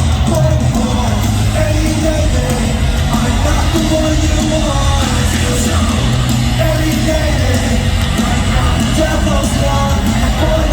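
Live rock concert: a loud band with heavy, distorted punk-metal guitars and drums, with shouted and sung vocals over it.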